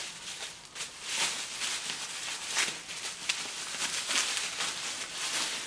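Pink plastic packaging bag crinkling and rustling in the hands as a gauge is unwrapped from it, with irregular sharp crackles.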